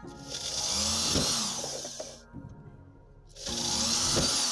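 Electric drill running with a small bit cutting into a thin sheet-metal cover, in two bursts of about two seconds each.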